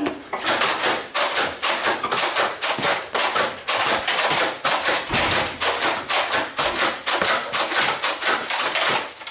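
Nerf blaster firing in a rapid, steady run of sharp clacks, about four or five shots a second.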